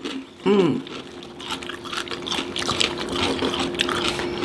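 Close-miked eating sounds: wet chewing and the crackle of hands picking up tacos and tortilla chips, with a short hummed vocal sound about half a second in.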